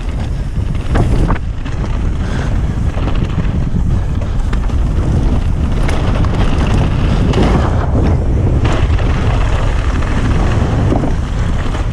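Wind buffeting the camera microphone as a mountain bike descends a dirt trail at speed, with tyre noise on the dirt and a few sharp knocks as the bike rattles over bumps.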